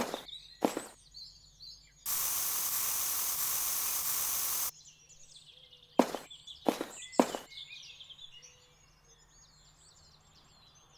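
A series of sharp knocks or chopping blows, two near the start and four more in quick succession about six seconds in, with small birds chirping faintly behind them. A loud, even hiss runs for about two and a half seconds between the two sets of knocks.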